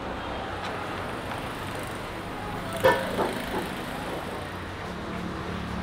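Steady low hum and hiss of kitchen background noise while a hand rubs and mashes crumbly paneer dough against a hammered aluminium tray, with a few light clicks on the metal about three seconds in.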